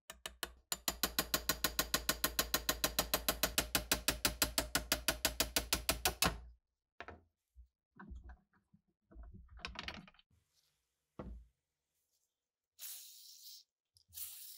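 Fast, even ratcheting clicks, several a second, from a hand tool being worked against a pin in a rusted steel trigger housing held in a vise, stopping after about six seconds. A few scattered knocks follow, then short hisses of an aerosol spray near the end.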